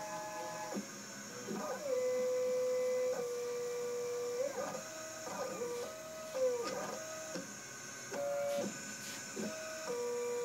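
Stepper motors of a Sherline 5400 CNC mill, driven by a TB6560 controller, whining as the axes move. Each move holds a steady tone for a second or so, then slides or steps to a new pitch as the motors speed up, slow down and change direction. The loudest stretch comes about two seconds in.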